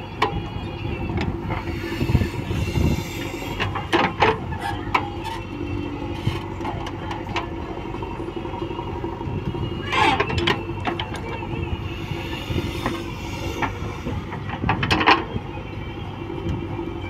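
JCB backhoe loader's diesel engine running steadily under load while the backhoe arm digs and dumps soil, with three short, louder clanks spread through.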